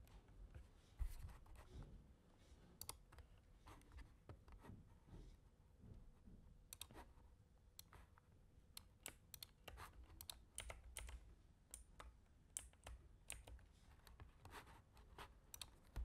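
Faint computer keyboard typing and mouse clicks: a scatter of quick, sharp taps, coming thicker in the second half.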